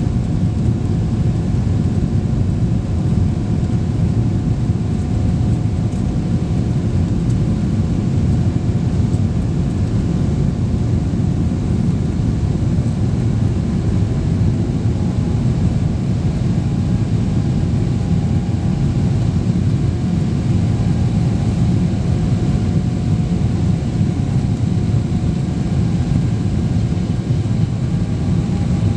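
Jet airliner cabin noise in flight shortly after takeoff: a steady low engine and airflow roar heard from inside the cabin, with faint steady engine tones above it.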